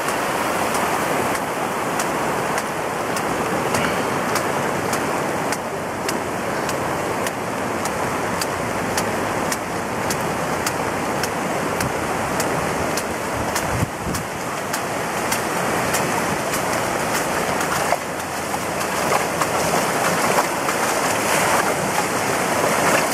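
Rushing floodwater of the River Calder in spate, a steady churning rush of water that grows a little louder near the end as the torrent comes close. Frequent short ticks run through it.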